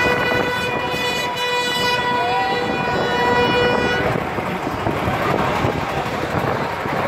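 A horn blowing one long, steady note that cuts off about four seconds in, followed by the noise of a large crowd.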